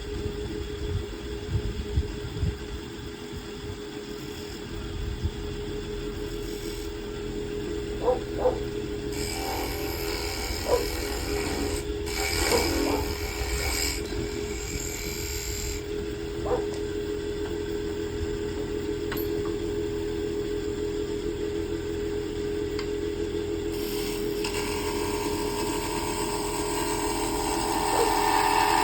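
Wood lathe running with a steady hum while a turning tool scrapes and cuts the spinning wood in spells, with a few short sharp catches along the way.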